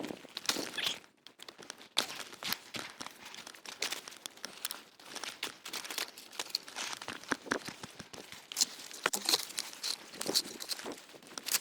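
Irregular crunching and rustling of a skier moving over wet snow, with many sharp clicks at uneven intervals.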